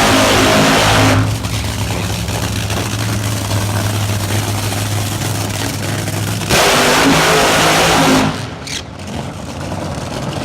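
Car engine idling with a steady low note, broken by two loud bursts of revving: one ending about a second in, another from about six and a half to eight seconds in.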